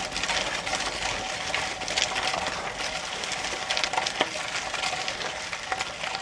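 Bicycle tyres hissing and crackling on wet tarmac in pouring rain, with scattered sharp ticks.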